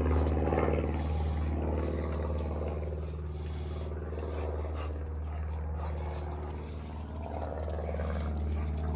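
Steady low engine drone, like a vehicle idling, easing off a little after the first few seconds.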